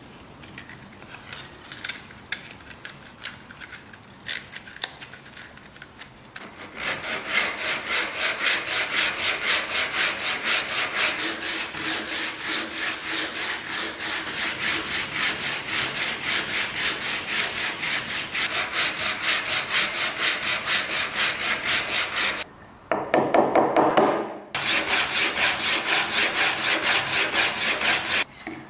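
Sandpaper rubbed by hand along the grooves of an old ridged wooden board: after a few seconds of light rustling and taps, fast, even back-and-forth scraping strokes set in, about three a second. Near the end the strokes pause for a moment, a brief louder, lower scrape follows, then the quick strokes resume.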